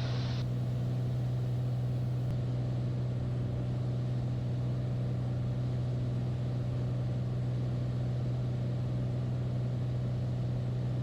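Single-engine piston airplane (Beechcraft A36 Bonanza) in flight, its six-cylinder engine and propeller droning steadily as heard in the cockpit, at reduced power for the descent with the landing gear down.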